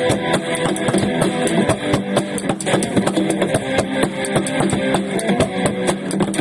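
Instrumental rock passage: strummed guitar with fast, dense drumming on plastic buckets used as drums.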